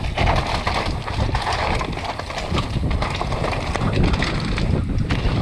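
Mountain bike descending a rough dirt and stony trail, heard from a camera on the bike or rider: tyres rolling over ground and stones, the bike rattling with many small knocks over bumps, under a steady rumble of wind on the microphone.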